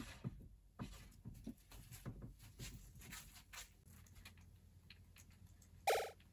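Faint scattered taps and rustles of a fusuma sliding door being opened and someone moving across a tatami room. Near the end a short, louder pitched beep sounds once.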